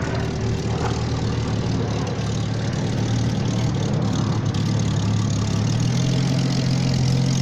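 Hawker Hurricane's Rolls-Royce Merlin V12 running at taxi speed: a steady low engine note that grows louder toward the end as the fighter taxis closer.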